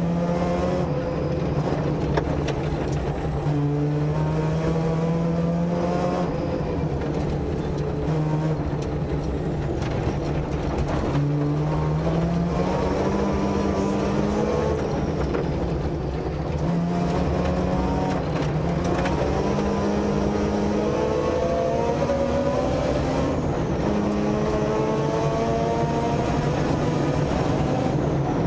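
Mazda RX-7 rally car's rotary engine heard from inside the cabin, its pitch climbing through the revs and dropping back again every few seconds as it is driven hard, over steady tyre and road noise.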